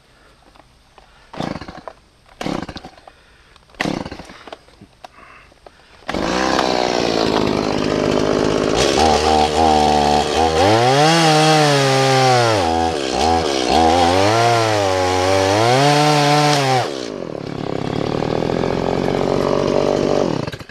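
Gasoline chainsaw cutting into a dead Osage orange limb. After a few short knocks, the saw starts about six seconds in and idles. It then revs hard, its pitch dipping and rising again and again as the chain bites into the wood, before dropping back to idle and shutting off near the end.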